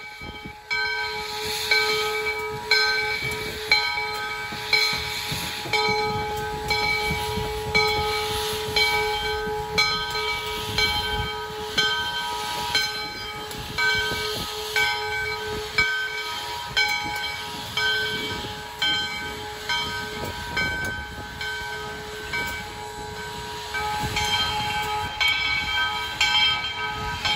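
U.S. Sugar steam locomotive No. 148, a 4-6-2, moving slowly and hissing steam, with loud beats about once a second. A steady ringing tone sounds over it, pulsing with the beats.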